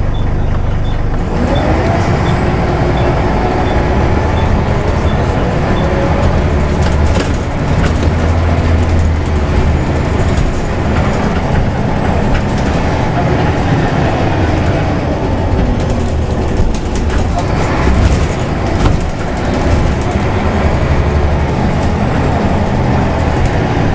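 Ulsterbus Scania Solar single-decker bus heard from on board, its engine pulling away with a rise in pitch about a second in and then running steadily under way, with body rattles and clicks. A light regular ticking, two to three a second, runs for the first six seconds.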